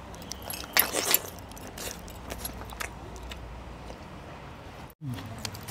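Scattered light metallic clicks and clinks of food being handled on a steel thali plate, with a few louder clinks about a second in.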